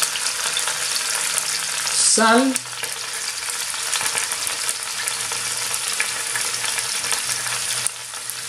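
Vegetables sizzling steadily in a hot pot on an induction hob, a continuous hiss with light crackling.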